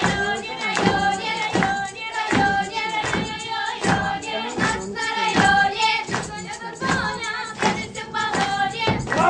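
A group of voices singing a song together over music, with a steady beat about two to three times a second.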